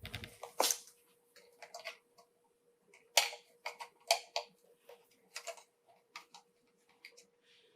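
Irregular light clicks and taps of screws and a screwdriver against the plastic body of a wall light switch as it is fitted into the wall box.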